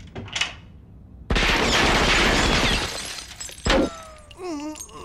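Animated-film sound effect of a long burst of automatic gunfire tearing through a door, with breaking glass, starting suddenly about a second and a half in and lasting about a second and a half before dying away. A single loud bang follows about a second later.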